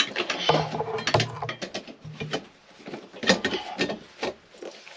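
A metal seat slider frame handled on a car's carpeted floor: a run of irregular knocks and clicks with scraping and rubbing between them, the sharpest knocks near the start, about a second in and past the three-second mark.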